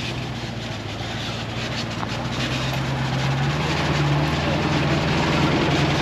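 Large truck's engine running as it approaches, growing louder, its low drone rising slightly in pitch about halfway through.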